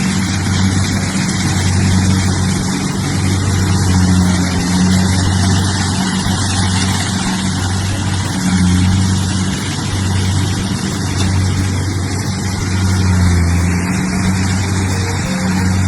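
Rice harvester's engine running steadily at work, a loud low hum that swells and dips slightly.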